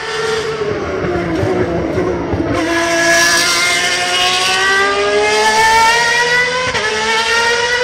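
High-pitched racing car engine, dipping in pitch, then climbing steadily as it accelerates, with a brief break about seven seconds in.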